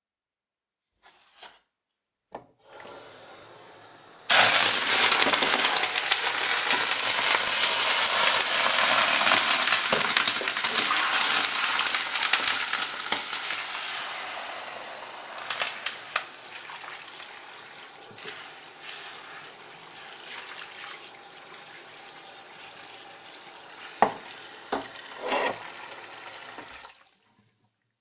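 Hot oil in a frying pan quenched with running tap water: after a few faint clicks and a low sizzle, a sudden loud hiss and spatter bursts out about four seconds in. It dies away gradually to a quieter sizzle with occasional sharp crackles and cuts off near the end.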